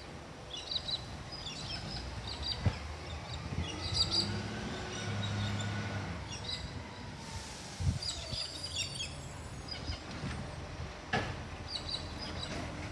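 Small birds chirping in short, repeated bursts over steady outdoor background noise. A low hum swells and fades about halfway through, and there are a few sharp knocks.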